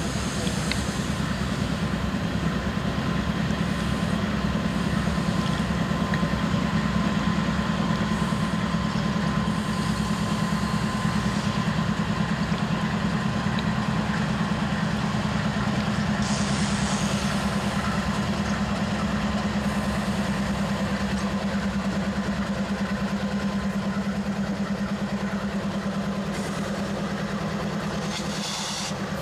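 Five Norfolk Southern diesel locomotives running light, without cars, passing close by. The lead GE Dash 9-44CW and the AC44C6M behind it make a steady, loud low engine drone that holds throughout.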